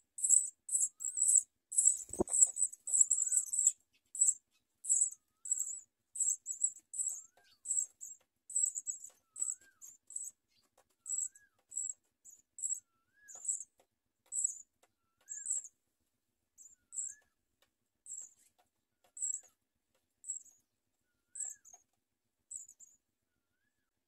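House sparrow nestlings begging with thin, high-pitched cheeps, rapid and crowded for the first few seconds and then spacing out and fading as the chicks settle in the nest after the feeding. A single knock about two seconds in.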